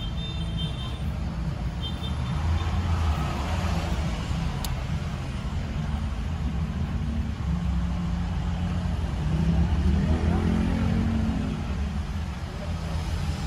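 Car interior road and engine noise picked up by a dash camera's built-in microphone: a steady low rumble that swells briefly about ten seconds in.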